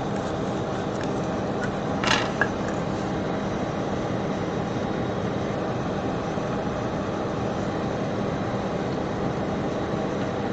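Steady fan-like whir with a faint hum. A brief click or scrape comes about two seconds in, with a smaller one just after.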